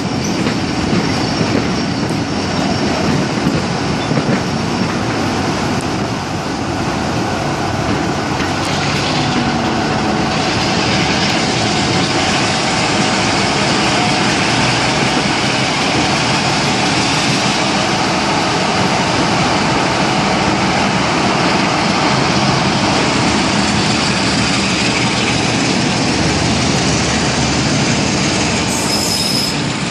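BR Class 45 'Peak' diesel locomotive under way, its Sulzer 12LDA28 twin-bank diesel engine running along with the rumble of wheels on the rails, heavily overlaid by wind buffeting on the microphone.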